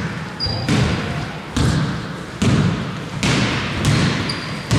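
Basketball being dribbled on a hardwood court: about seven bounces a bit under a second apart, each echoing in the hall, with a few short high squeaks of sneakers.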